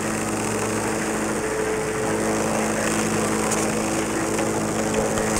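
Fax machine printing a page, its feed motor whirring steadily as the paper comes out.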